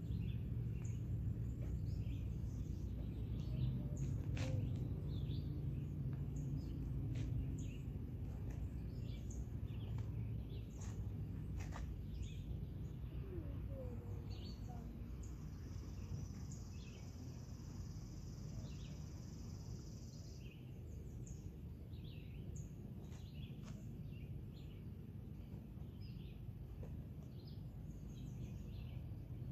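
Outdoor ambience: scattered short bird chirps over a steady low rumble, with a thin high buzz lasting about five seconds midway.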